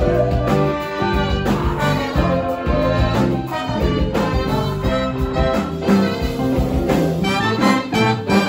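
Live band playing with a horn section: trombone, trumpet and saxophone over electric guitars, bass and a drum kit.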